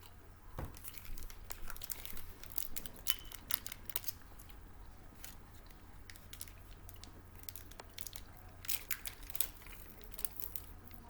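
Plastic snack wrapper crinkling and crackling as it is handled and torn open, in two spells of irregular crackles, the second near the end.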